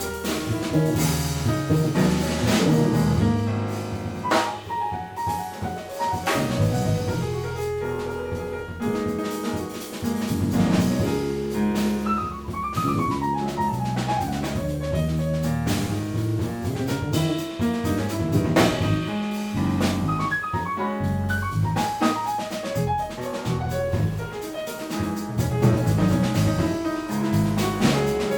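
Live jazz quartet playing: piano running quick lines of notes over walking double bass and a drum kit with frequent cymbal strokes.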